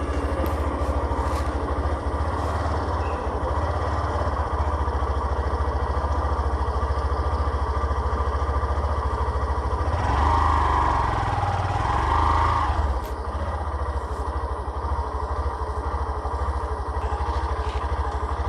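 Motorcycle engine running steadily as the bike rides along, with a louder stretch from about ten to thirteen seconds in.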